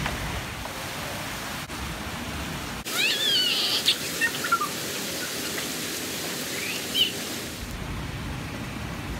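Steady rush of splashing water from pool fountain jets. About three seconds in a child gives a high-pitched squeal, and a few shorter high cries follow.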